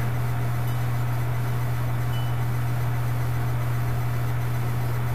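A steady low hum under an even background hiss, unchanging throughout, with no other sound above it.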